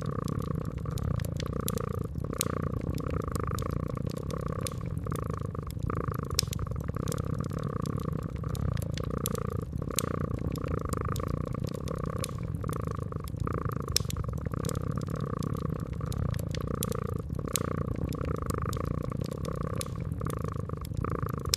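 Cat purring steadily, swelling and fading in an even rhythm, over a wood fire crackling with scattered sharp pops.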